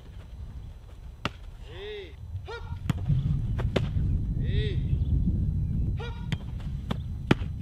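A football being struck and caught during goalkeeper diving drills: several sharp knocks, and a heavier rumble as the keeper dives onto the grass about four seconds in. Short pitched bird calls repeat every few seconds in the background.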